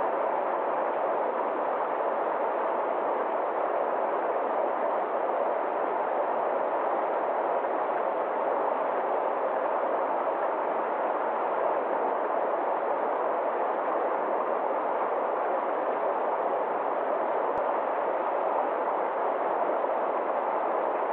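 Stream water rushing steadily over a small cascade of rocks, an even, unbroken rush.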